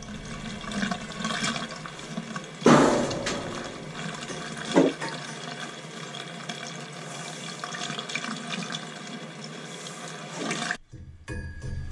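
Water rushing out of a drain hose into a utility sink as a hot-water baseboard heating loop is purged of air under fast fill. It runs steadily with two louder spurts, about three and five seconds in, and cuts off suddenly near the end.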